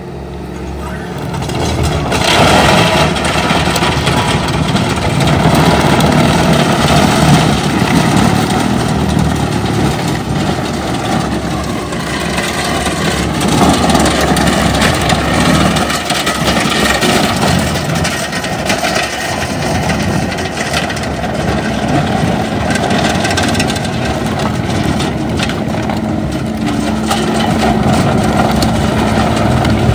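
Skid steer's engine running under load while its Coneteks 2.13M rotor-head attachment grinds up stumps, roots and soil: a dense, continuous grinding and crushing noise. It gets louder about two seconds in as the rotor bites.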